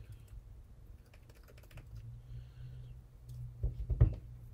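A plastic measuring spoon scooping chili powder from a small spice jar, with faint scrapes and clicks, then a few louder taps about three and a half seconds in as the spoon is knocked against the plastic mixing bowl. A steady low hum lies under it.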